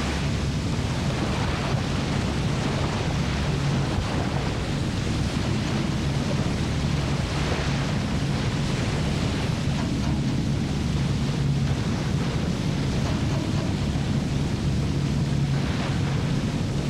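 Steady roar of a large whitewater rapid, the river crashing and churning, with a low hum underneath.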